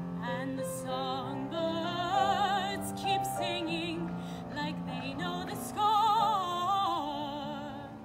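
A woman's voice singing in a classical, operatic style with wide vibrato over a sustained accompaniment, swelling to a loud high held note about six seconds in.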